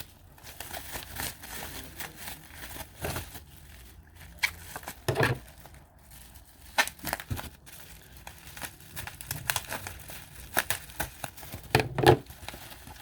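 Packaging crinkling and tearing as it is pulled open by hand: an irregular crackly rustle, with a few louder crackles about five seconds in and near the end.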